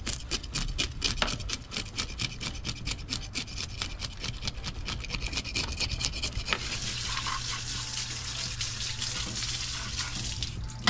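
A knife scraping the scales off a black sea bass in quick, repeated strokes. About six and a half seconds in, the scraping gives way to a steady rush of running water.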